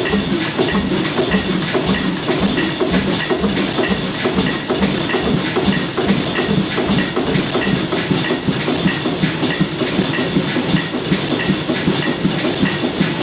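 Old estate sawmill machinery running steadily with a fast, even mechanical clatter.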